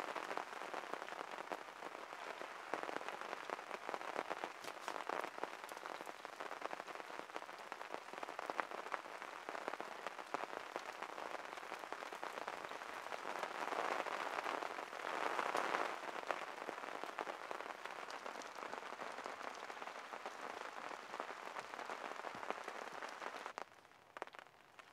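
Steady hiss of rain with many sharp crackles and pops from burning fatwood tinder. It drops much quieter just before the end.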